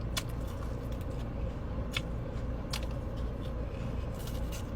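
Close-up crunching and chewing of crispy fried chicken wings: a few sharp, crisp crunches over a steady low hum of the car.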